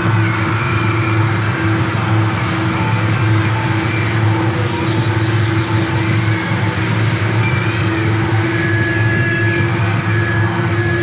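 Experimental noise-drone music: a dense, steady rumbling hum with layered sustained tones over a wash of noise. A thin high tone joins near the end.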